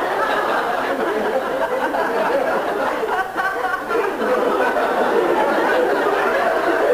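Studio audience laughing steadily, a continuous mass of many voices chuckling and laughing together.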